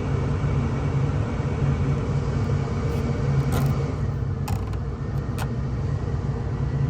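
Combine harvester running steadily with a low rumble and a constant hum. Three faint clicks come about halfway through.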